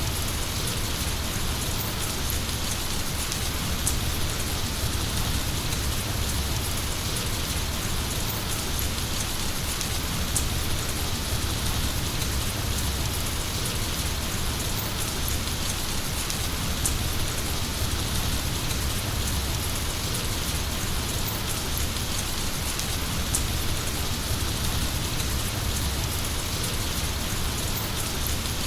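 Heavy rain falling steadily: an even, unbroken hiss with a low rumble underneath and a few sharp drop ticks now and then.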